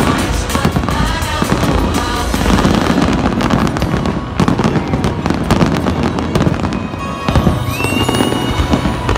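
Fireworks finale: a dense barrage of aerial shells bursting and crackling in quick succession, with music playing alongside. A short rising whistle comes near the end.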